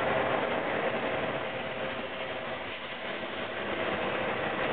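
Steady rushing noise of a Shinkansen bullet train alongside a station platform. The noise dips a little midway, then rises again.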